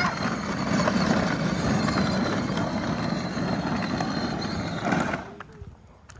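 A child's side-by-side (UTV) running and moving off, a steady dense mechanical noise that cuts off abruptly about five seconds in.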